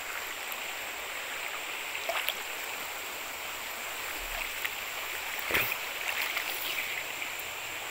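Steady rush of flowing river water close to the microphone, with a couple of short splashes from a person moving in the water. The louder splash comes about five and a half seconds in.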